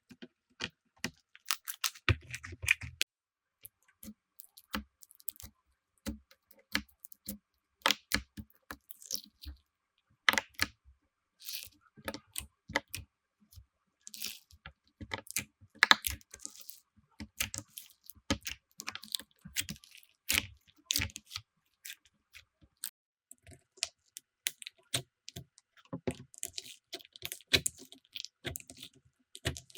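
Slime being squeezed, poked and pressed by hand, making irregular sticky clicks and crackles.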